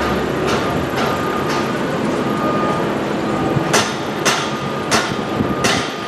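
Hammer blows on construction formwork, one about every half second and louder from about four seconds in, over steady construction-site machinery noise.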